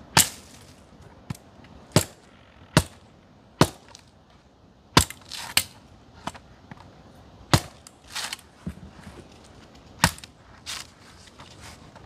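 A series of about a dozen sharp cracks or chops, spaced unevenly at roughly one a second, some coming in quick pairs.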